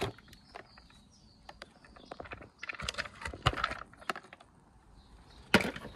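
Hard plastic parts of an opened pressure washer casing being handled. Scattered light clicks and rattles, a busier cluster about three seconds in, and a louder knock near the end.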